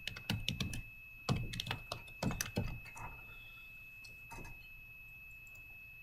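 Computer keyboard typing: a run of quick keystrokes through the first three seconds, then one more short cluster about four and a half seconds in.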